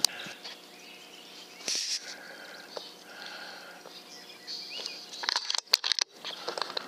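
Birds calling faintly in the background, then, about five and a half seconds in, a quick cluster of sharp cracks and clicks: a follow-up shot from an FX Impact PCP air rifle.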